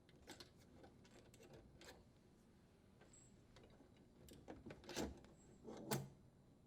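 Faint clicks and taps of small parts being handled as the strain relief nut is unthreaded and the strain relief and power wires are pulled from the dishwasher's terminal box, with two louder clicks about five and six seconds in.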